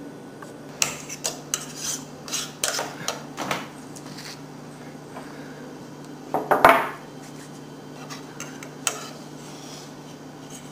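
Metal fork clicking and scraping against a plate while cutting up a fried egg: a run of light taps and scrapes over the first few seconds, a louder clatter about six and a half seconds in, then a few more taps.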